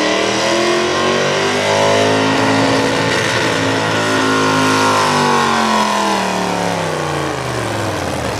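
Hot rod V8 pulling tractor's engine running hard under load as it drags a weight-transfer sled down the track. The pitch climbs over the first two seconds, holds, then falls over the last three seconds.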